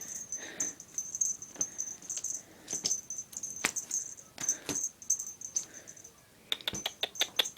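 Handling noise on a recording iPod: scattered taps, clicks and rubs, with a quick run of sharp clicks near the end, over a faint high steady whine.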